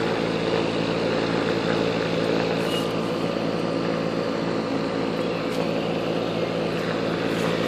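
Comfortmaker packaged air-conditioning unit running in cooling mode, a steady even mechanical hum with no change.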